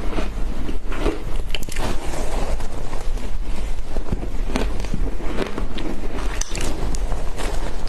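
Matcha shaved ice being bitten and chewed close to the microphone, a run of irregular crunchy crackles several times a second, over a steady low hum.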